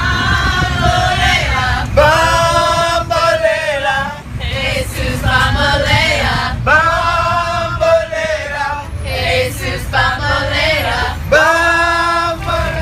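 A group of men and women singing together in unison phrases aboard a bus, over the bus's low engine rumble.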